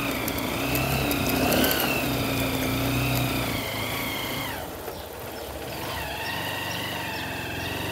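A vehicle engine running steadily while moving along, then dropping away to a quieter level about halfway through.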